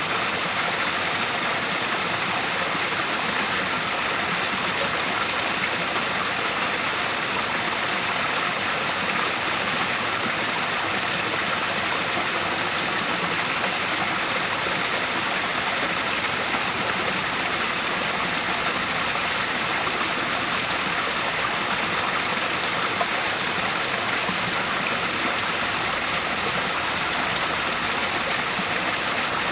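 Waterfall, water pouring and splashing with a steady, even rush.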